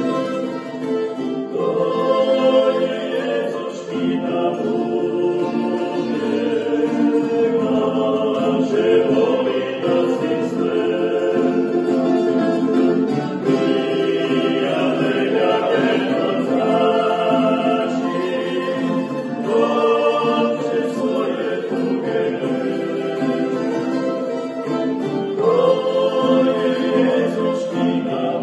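Three men singing a song together, accompanied by strummed acoustic guitars and a small mandolin-like plucked string instrument.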